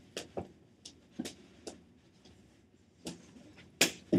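Floor hockey sticks clacking against the ball and each other during play: a run of separate sharp clicks and knocks, about nine in all, the loudest two near the end.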